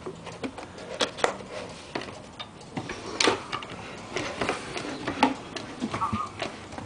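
Irregular clicks, knocks and rustles from a punched paper music roll being loaded into a handmade wooden barrel organ and its wooden lid being shut, with a brief tone near the end.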